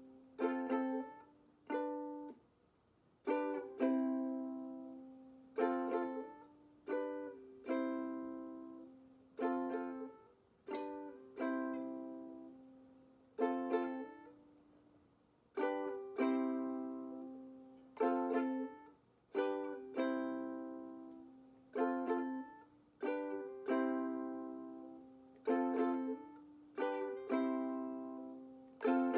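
Ukulele chords played with single down strums, each chord left to ring and fade before the next, about one strum every second or two.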